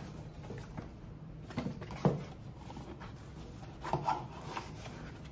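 Cardboard box and brown packing paper being handled and opened: scattered rustles and light knocks, the sharpest about two seconds in and again about four seconds in.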